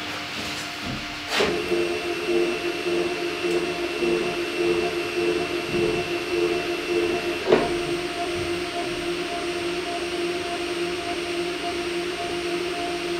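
Hybrid stepper motors driving a home-built CNC milling machine's Y axis: a steady whine of a few pitches, with a sharp click about one and a half seconds in and another at about seven and a half seconds.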